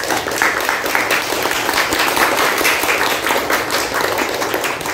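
A small group of people applauding, many hands clapping steadily.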